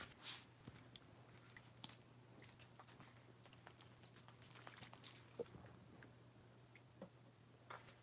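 Faint handling noise close to the microphone: scattered small clicks and short rustles of hands moving a glass perfume bottle, with one brief louder rustle just after the start, over near silence.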